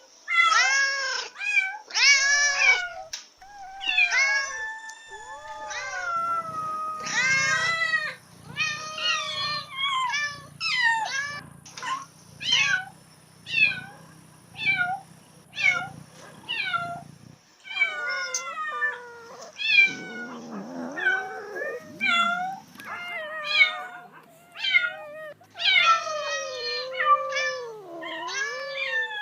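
Domestic cat in heat calling over and over: a long run of loud meows, roughly one a second, mixed with a few longer, wavering yowls.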